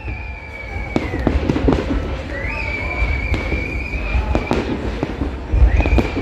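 Fireworks display: shells bursting in a string of sharp bangs, about one a second, over a deep continuous rumble of booms.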